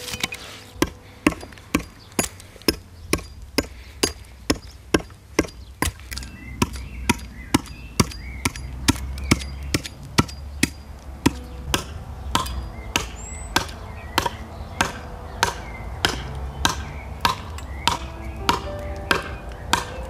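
Hatchet chopping into a pear-wood stump, a steady run of sharp strikes at a little over two a second, roughing out a bowl blank.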